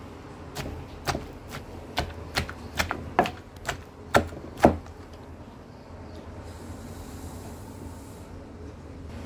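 Wooden spoon knocking against a pot while stirring diced onions: about a dozen irregular sharp knocks over the first five seconds, the last one loudest, then only a steady low hum.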